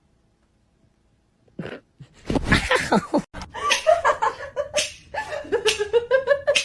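Near silence, then about a second and a half in a person starts laughing hard in rapid, repeated pulses that carry on to the end.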